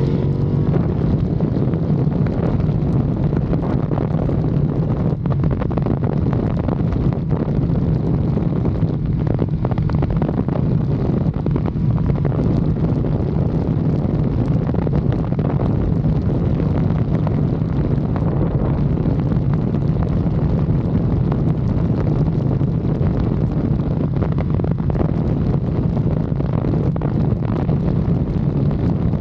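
Motorcycle engine running at a steady cruise, its note holding even, under heavy wind noise on the microphone.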